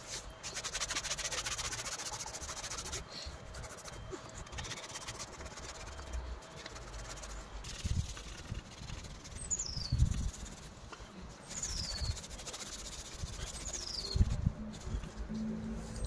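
Cloth rubbing and polishing over a carved antler needle case, with a few handling bumps, the loudest about ten seconds in. A bird gives short calls that drop in pitch, four times in the second half.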